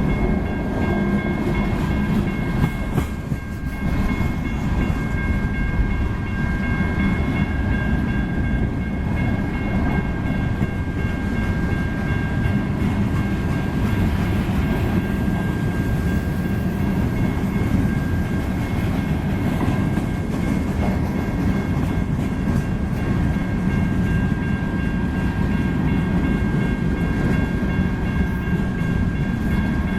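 Freight train cars rolling past: a steady, continuous rumble, with a few faint, steady high-pitched tones running over it.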